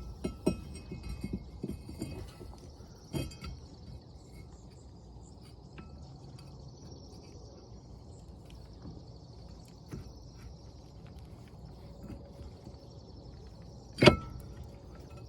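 Metal clinks and knocks of brake parts and tools being handled: a quick run of them in the first few seconds, then one loud knock near the end. Insects chirp steadily in the background.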